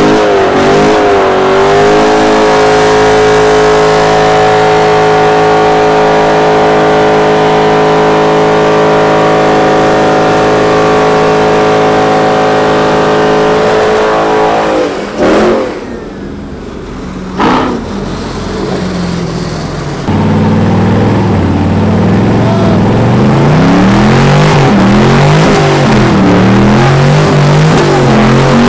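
Car engine held at steady high revs during a burnout for about twelve seconds, then letting off. After a quieter stretch with two short sharp sounds, a white Chevrolet Camaro's engine revs up and down in a wavering pattern as it does its own burnout.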